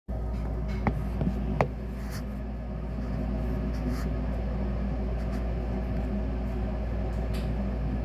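Rheem furnace running with a steady low hum. Three sharp clicks come in the first two seconds.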